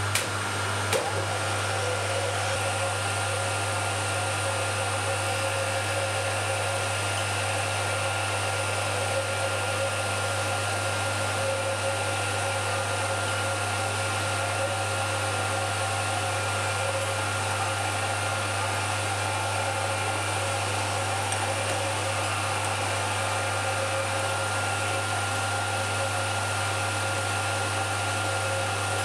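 Motor-driven wheel cutter on a Schaublin 102 lathe running steadily, a constant motor hum and whine, as it cuts teeth in a brass clock wheel. There are two light clicks at the very start.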